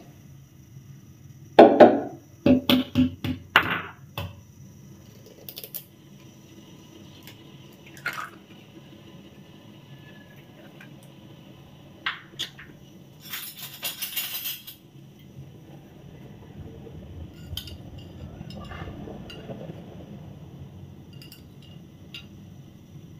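Eggs cracked against a ceramic bowl, with a cluster of sharp knocks and clinks in the first few seconds and scattered clinks of bowl and spoon after. A brief rustling noise comes about thirteen seconds in, and near the end a spoon beats the eggs faintly in the bowl, over a low steady hum.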